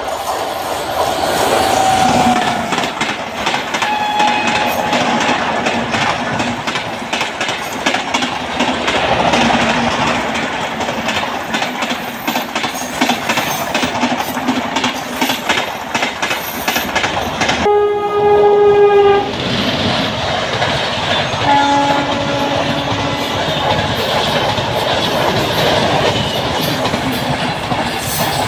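A passenger express passing at speed behind an electric locomotive: a steady rush and a rapid clickety-clack of coach wheels over the rail joints. A loud horn blast of about a second and a half comes about 18 seconds in, with a few shorter, fainter tones near the start and around 22 seconds.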